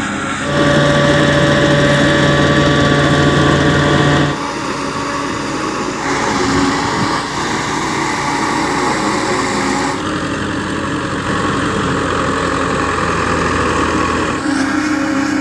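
Engine of a silage harvester cutting a maize crop, running steadily. Its pitch and loudness shift abruptly several times: about half a second in, around four, six and ten seconds in, and near the end.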